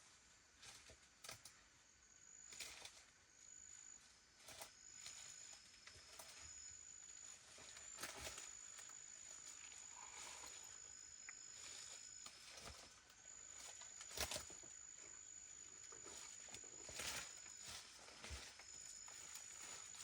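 Faint forest ambience: a high, thin insect trill that stops and starts, with scattered light clicks and knocks throughout.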